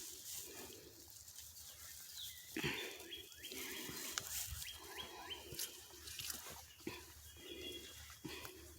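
Faint dogs barking repeatedly in the distance, a beagle among them.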